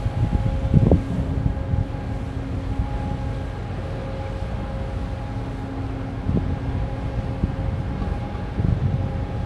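Steady low hum of a large container ship's engines and machinery as it passes, a few held tones over a rumble. Wind buffets the microphone in gusts, hardest about a second in and near the end.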